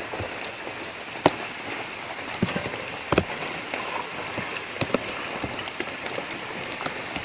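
Steady rain falling, with scattered sharp ticks and taps through the hiss.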